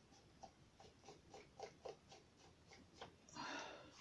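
Faint, quick paintbrush strokes on the paper hull of a model boat, roughly four a second, with a short soft hiss about three and a half seconds in.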